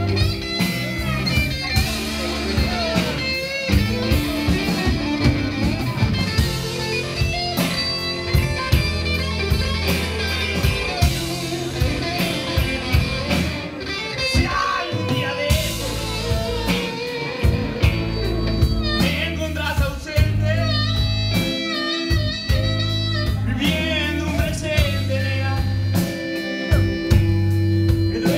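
Live blues-rock band playing: electric guitars, bass guitar and a drum kit in a steady groove, with a harmonica playing bent, wavering notes over the band in the second half.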